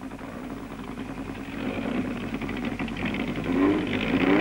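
Formula Junior single-seater racing car engines running and growing louder, with a rev rising and falling near the end.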